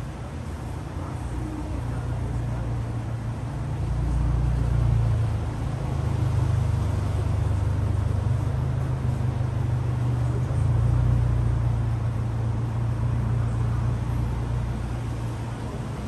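A vehicle engine running as a steady low rumble, growing louder about four seconds in and swelling again just past the middle.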